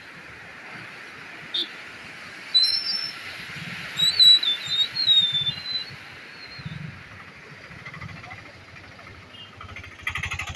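Swollen, fast-flowing floodwater rushing past a concrete bridge pillar, a steady hiss, with a bird's whistled, warbling calls about two to six seconds in that are the loudest sound. A rougher rattling sound comes in near the end.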